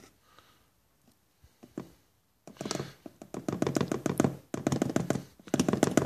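A plastic measuring scoop digging and scraping in a plastic jar of ground coffee: a rapid rattle of small clicks and knocks in several spells, starting about two and a half seconds in.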